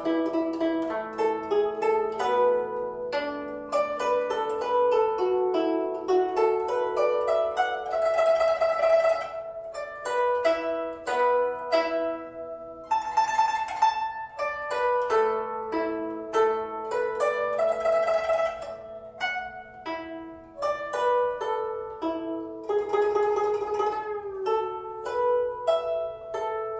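Guzheng (Chinese zither) playing solo: a plucked melody with notes bent in pitch, broken about every five seconds by a quick dense flurry across the strings, four times in all.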